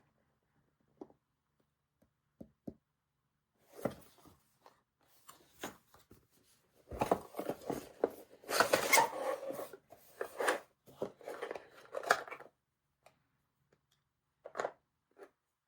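Hands handling small hard objects: scattered light clicks, then about five seconds of busy rustling, scraping and clicking, then two more clicks near the end.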